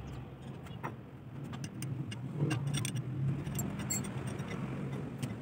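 Scattered metallic clicks and clinks of a spanner and parts being handled on a Fiat 640 tractor's clutch pressure plate assembly, over a steady low hum.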